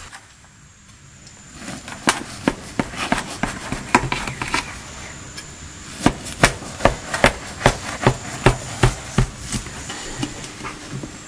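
Knife cutting through the crisp, seed-topped crust of a freshly baked round loaf on a metal tray: a run of sharp crunches that settles into a steady stroke, about two or three a second, in the second half.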